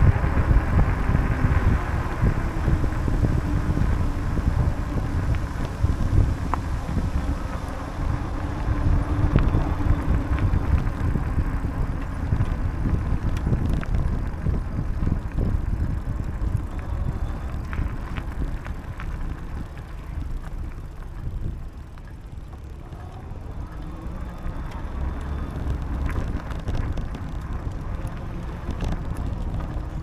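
Wind buffeting the microphone and bicycle tyres rumbling on a paved path while riding, easing off for a few seconds about two-thirds of the way through.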